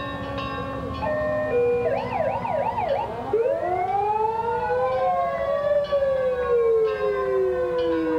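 Fire engine sirens sounding together: a rapid up-and-down yelp about two seconds in, then a siren rising to a long wail and slowly falling away, over other steady siren tones.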